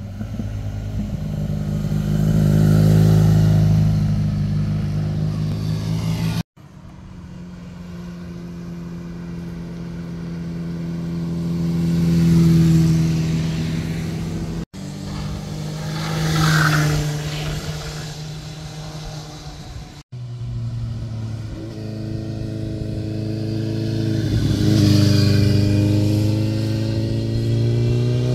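Motorcycle engines, one machine at a time, riding through a tight bend. Each gets louder as it approaches and passes, then fades, with its engine note rising and falling in pitch. Four separate passes are cut together, each breaking off abruptly.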